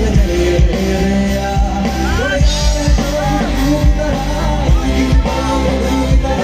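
Live amplified rock band: a man singing over electric guitar, keyboard and a steady drum beat. The voice comes in about two seconds in.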